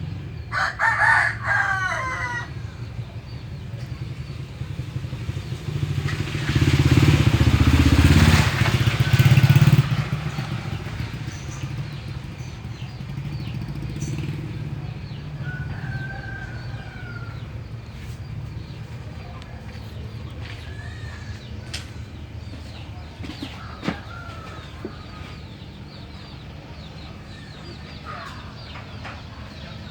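Diesel engine of a Kubota DC-60 combine harvester running steadily, getting much louder for a few seconds starting about six seconds in. A rooster crows near the start.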